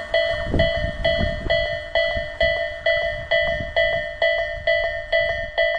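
Level-crossing warning bell ringing steadily, about two dings a second, the signal that a train is passing or due. Under it, the low rumble of a Tobu 500 series Revaty electric express train fades out as it runs away.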